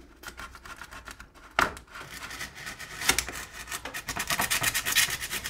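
A knife blade sawing through a plaster-bandage crust over Styrodur foam, making a fast run of short rasping, scratching strokes. The strokes grow denser and louder from about halfway in, and there is a sharp click about a second and a half in.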